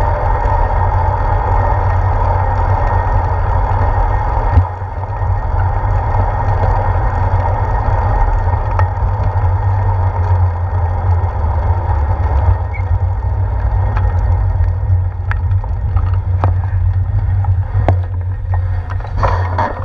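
Wind buffeting the microphone of a handlebar-mounted action camera on a moving bicycle, a loud steady rumble mixed with tyre-on-road noise that dips for a moment about four seconds in. Several sharp clicks and knocks come in the last few seconds as the bike rolls through the intersection.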